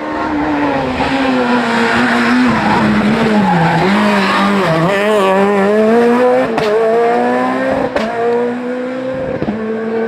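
Peugeot 207 rally car's engine at high revs through a tight bend. The pitch falls as it slows into the turn, then climbs steadily as it accelerates out, with two sharp cracks in the second half.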